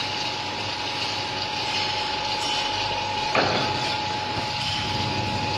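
Metal lathe running while cutting an Acme thread on a shaft: a steady machine noise with a constant whine over it, and one sharp click a little over three seconds in.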